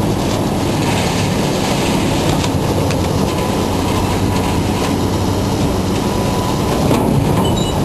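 Heavy scrapyard machinery running while it tears apart a truck's steel body: a steady low engine drone under metal creaking and clattering, with a few brief high squeals of metal near the end.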